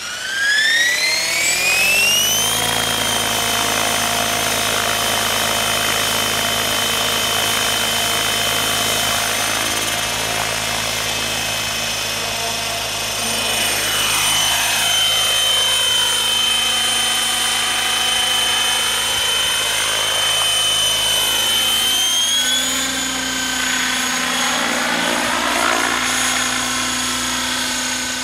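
Radio-controlled model helicopter spooling up: a whine that rises in pitch for about two seconds as the rotor comes up to speed, then holds steady. The pitch steps up slightly about 22 seconds in.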